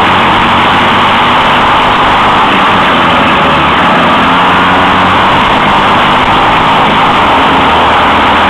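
Racing kart's engine running hard at speed on a dirt track, heard loud and steady from a camera mounted on the kart itself.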